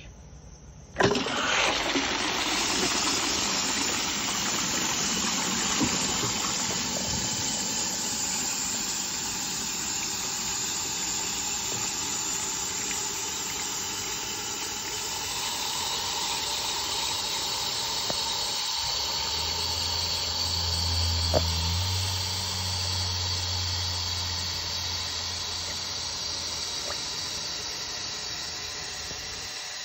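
Toilet cistern on a full flush, then refilling through the ball cock float valve, which has a new washer. A steady rush of water starts suddenly about a second in; a faint high whistle joins about halfway, and a low hum sounds for several seconds in the second half.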